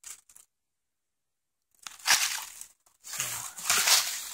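Footsteps crunching through dry fallen leaves: a brief rustle at the start, then a few crunching steps in the second half.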